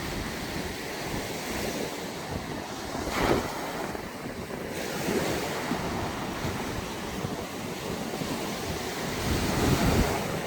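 Sea waves breaking and washing on the beach, a continuous surf wash with two louder surges, one about three seconds in and one near the end. Wind buffets the microphone.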